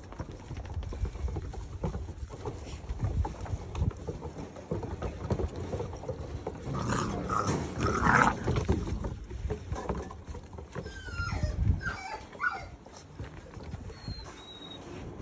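Six-week-old pointer puppies play-fighting: a loud burst of puppy growling and yapping about halfway through, then a few short sliding whimpers, over low thumps of scrambling paws.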